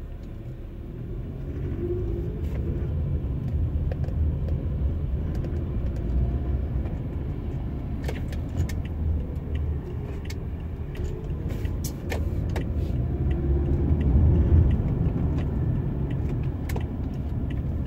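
Car engine and road noise heard from inside the cabin as the car pulls away from a stop, growing louder about two seconds in and holding as it drives on. Many light, sharp clicks come in over the second half.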